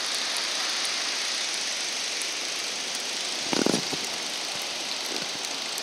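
Steady hiss of ocean surf breaking on the beach, with wind, and a brief bump about three and a half seconds in.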